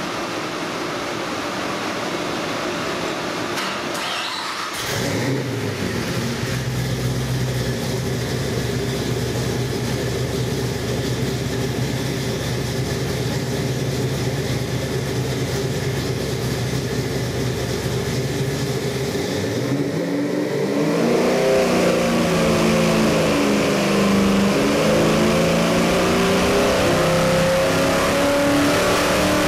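A carbureted Ford 347 cubic-inch small-block stroker V8 running on an engine dyno. It idles steadily at about a thousand rpm, then about twenty seconds in it is put under load and its revs climb steadily in a dyno pull past 4,000 rpm.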